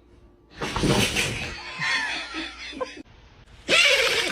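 A short sneeze about half a second in, then a person bursting into laughter near the end.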